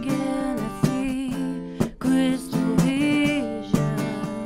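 Live acoustic duo: a woman singing phrases into a close microphone over a strummed acoustic guitar, with short breaks between the sung lines.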